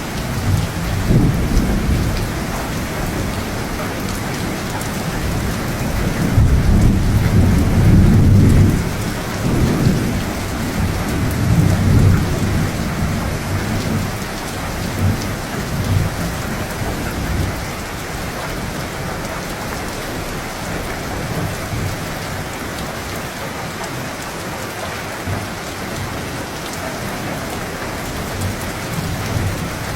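Steady heavy rain with rolling thunder: a long low rumble swells from about six seconds in and rolls on until about thirteen seconds, with smaller rumbles near the start and around sixteen seconds, then steady rain alone.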